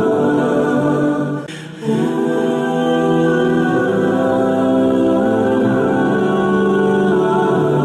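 Background music of slow, held wordless choir-like vocal notes, with a short drop in level about a second and a half in.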